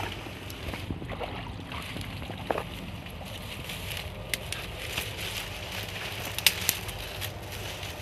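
Footsteps and rustling as someone pushes through dry leaves and undergrowth, with a few sharp snaps, the loudest about six and a half seconds in, over a low steady rumble.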